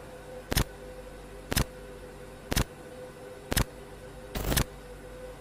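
Sharp ticks, about one a second, like a clock ticking, over a steady low hum. The last tick, near the end, is longer and doubled.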